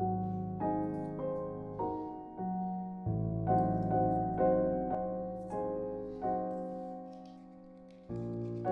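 Background music: soft piano melody over low held bass notes, struck notes fading away one after another at an unhurried pace.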